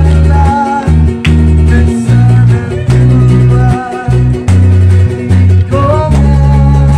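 A Fijian string-band medley played live: an acoustic guitar strumming over a heavy bass line that changes note every half-second or so, with voices singing along.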